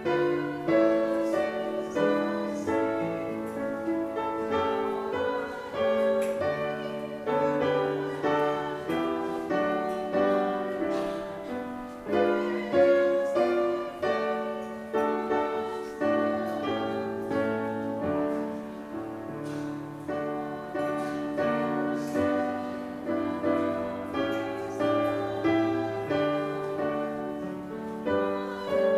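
Piano playing slow, chordal music: notes and chords are struck and left to ring and fade.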